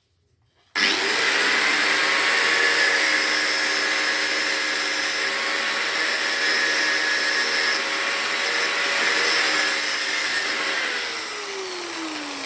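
Angle grinder switched on about a second in and run steadily on a piece of tube, cutting it, with a high hiss of disc on metal. Near the end it is switched off and its pitch falls as it winds down.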